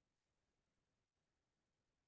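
Near silence: a pause in the talk, likely gated to digital silence.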